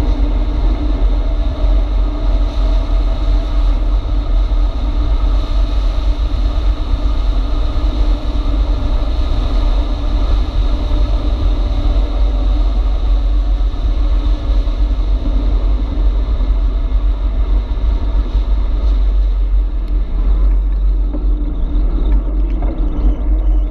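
Wind buffeting the microphone of a camera riding on a moving e-bike: a loud, steady, low rumble with a fainter hiss above it that thins a little near the end.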